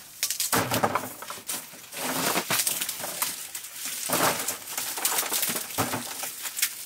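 Curved sickle blade cutting through fibrous green nettle stalks: a series of crisp crunching cuts at an uneven pace, roughly one a second.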